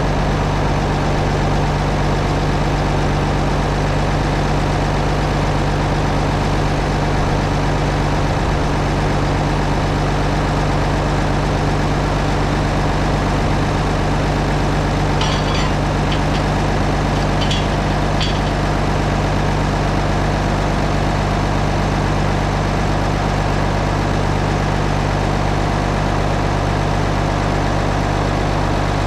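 Tractor engine idling steadily, with a few light clicks about halfway through.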